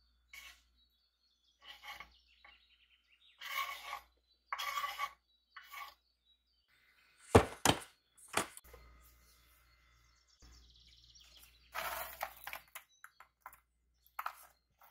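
Intermittent kitchen handling sounds: brief rustles and clinks of dishes and utensils, with one sharp knock about seven seconds in, the loudest, and a smaller one just after.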